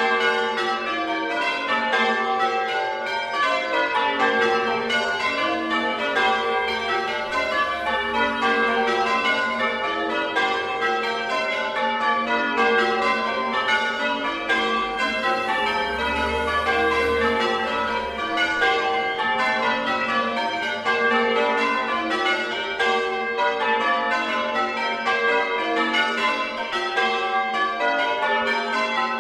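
Church bells heard close up, rung in a continuous peal: many bells struck one after another in quick succession, their tones overlapping and ringing on.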